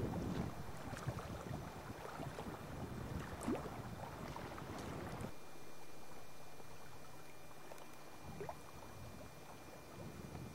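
Water lapping and splashing against a kayak's hull, with wind on the microphone and scattered small splashes. About five seconds in, it cuts abruptly to gentler lapping with a faint steady hum.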